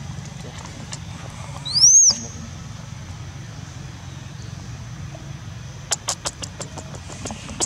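A single high whistled animal call about two seconds in, rising and then falling in pitch and lasting under half a second. From about six seconds in it is followed by a run of sharp clicks, about five a second, over a steady low hum.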